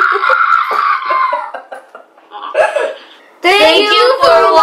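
Children's voices: a boy's long, high-pitched cry in reaction to the spicy ramen, fading about a second and a half in. After a short lull, several children start singing loudly together near the end.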